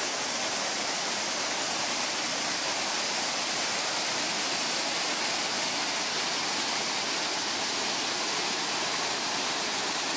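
Mountain brook rushing over ice-coated boulders and small cascades, a steady, even rush of water.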